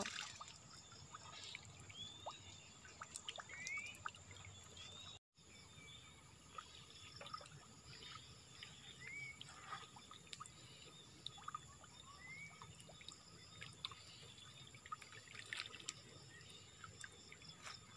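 Faint water trickling and dripping as a fishing lift net is worked in shallow floodwater, with scattered small ticks and a few faint short rising chirps. The sound drops out completely for a moment about five seconds in.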